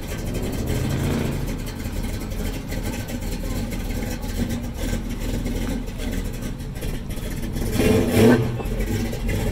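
Engine of a lowered early-1950s Chevrolet two-door sedan running as the car rolls slowly past at low speed, with a brief louder swell about eight seconds in.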